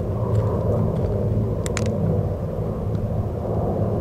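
Steady low drone of a formation of two P-47 Thunderbolts and three P-38 Lightnings in flight. The P-47s' Pratt & Whitney R-2800 radials and the P-38s' twin Allison V-1710 V-12 piston engines blend into one rumble.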